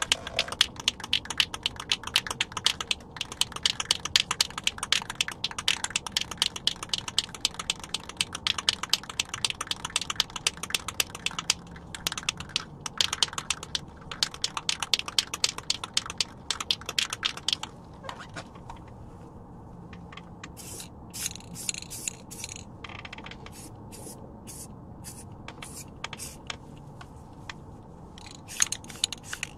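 Aerosol spray can of rust reformer being shaken, its mixing ball rattling in rapid clicks; the rattle thins to a few scattered clicks past the middle and picks up fast again near the end.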